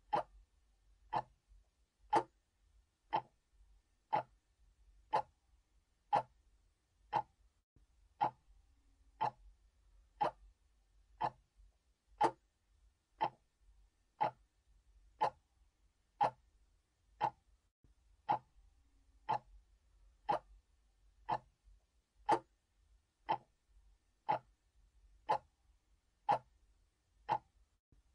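Mechanical clock ticking steadily, a short sharp tick about once a second.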